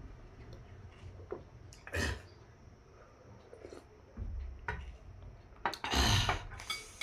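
Close-miked eating sounds: noodles and soup slurped in short bursts between chewing, with the loudest, longest slurp near the end.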